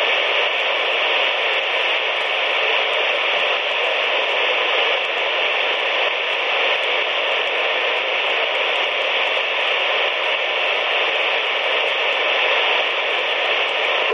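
CB radio receiver tuned to channel 19 (27.185 MHz) giving a steady hiss of static through its speaker, with no station coming through.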